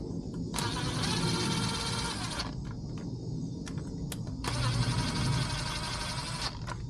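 A small electric power tool runs in two bursts of about two seconds each, with a pause between them, over a low steady background hum.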